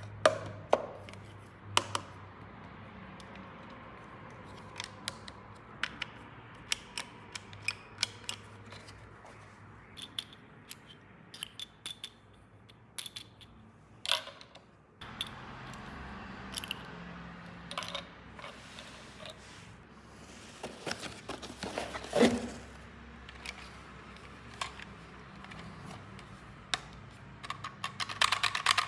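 Small plastic toy pieces being handled and fitted: many sharp clicks and taps at irregular intervals, with a brief scraping rustle about two-thirds of the way through.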